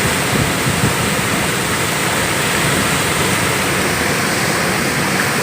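Waterfall and fast river water rushing, a loud steady roar of white water.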